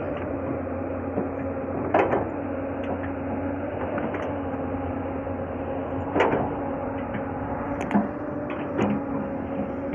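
Hyundai crawler excavator's diesel engine running steadily under load while its bucket digs and presses the soil of a ditch, with a few sharp knocks about two, six and eight seconds in.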